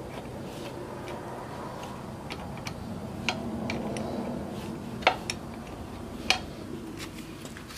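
Scattered sharp metal clinks from a 2005 Chevy Silverado's driveshaft U-joint and the rear differential's pinion yoke as the shaft is worked loose by hand for removal. The loudest clinks come about three, five and six seconds in, over a steady low hum.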